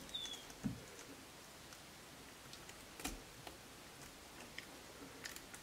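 Quiet, sparse clicks and soft scraping of a fillet knife cutting along a pike's backbone and ribs on a cutting board.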